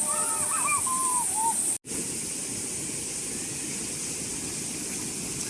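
Several short whistled bird calls, rising and falling, over outdoor background noise. After a sudden cut, a steady rushing noise runs on with a constant high hiss above it.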